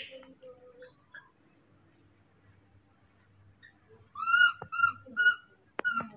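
Baby monkey giving three short, high, arched calls in quick succession about four seconds in, over a faint steady high hiss. A brief noisy rustle comes right at the start, and a few sharp clicks come near the end.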